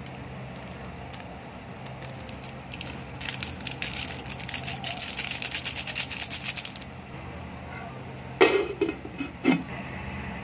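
Thin plastic sachet crinkling as whole black peppercorns are shaken out of it into a pot, a dense crackle lasting about four seconds. Near the end, two sharper crackles of a plastic water bottle being handled, over a steady low hum.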